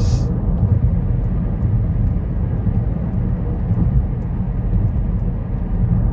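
Steady low rumble of road and engine noise inside a moving car's cabin, tyres running on the highway.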